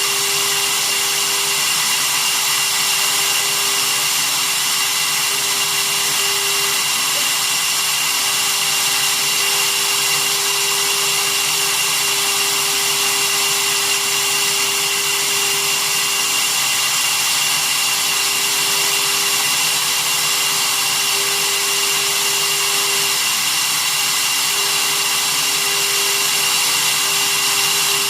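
Small CNC machine running steadily while milling a printed circuit board: a spindle motor with a steady high whine, along with a lower tone that wavers slightly in pitch.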